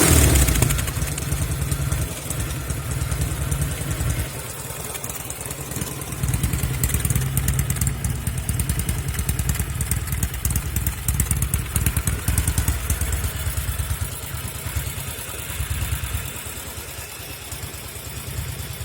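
1974 Norton Commando 850's air-cooled parallel twin running through un-muted silencers, dropping from a rev to idle just after the start and then idling unevenly, its level rising and falling. The owner hears occasional misfires from the left side, which is also smoking.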